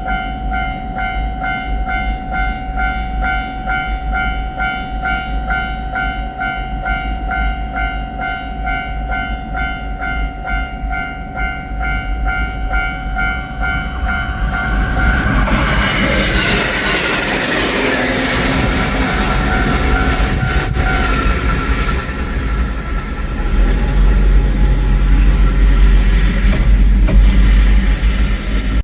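A Japanese railway level-crossing bell ringing steadily in its repeated 'kan-kan' pattern; about halfway through, an electric train passes over the crossing, its loud rumble and rattle covering the bell, heaviest near the end.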